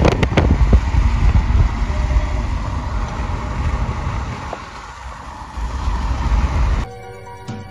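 Road and wind noise of a car travelling along a freeway, with a heavy, uneven low wind rumble on the microphone. About seven seconds in, it cuts to background music.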